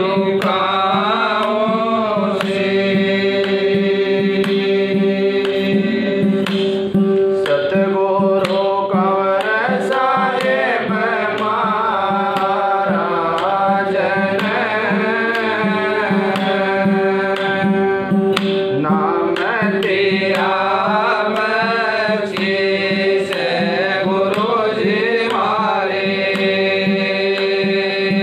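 A man singing a devotional hymn (bhajan) through a microphone, his voice winding up and down over a steady drone, with light percussion strokes.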